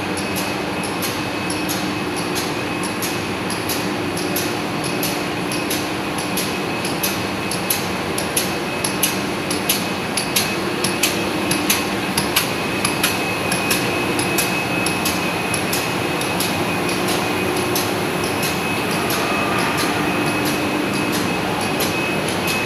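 Fiber optic cable production machinery running: a steady mechanical hum with a constant high whine and a regular ticking, with sharper, louder clicks around the middle.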